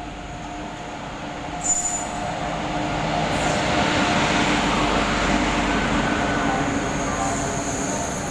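WAP-7 electric locomotive 37461 and its LHB coaches passing along a station platform: the rumble of wheels and running gear swells as the locomotive draws level and goes by, over a steady hum from the locomotive. A thin high whine comes in near the end.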